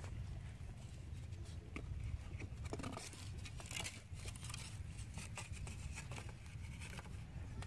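Scattered small clicks and rustles as a bamboo fishing rod is handled on wooden planks, with a denser patch of crackling about three seconds in, over a steady low rumble.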